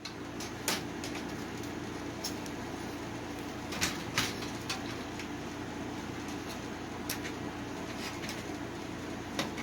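A steady low hum with a few sharp clicks and taps scattered through it, such as parts and tools being handled on a workbench.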